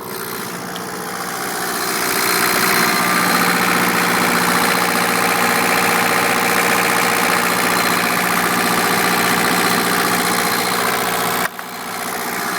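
Generator engine running steadily. It grows louder over the first two seconds and drops off suddenly near the end.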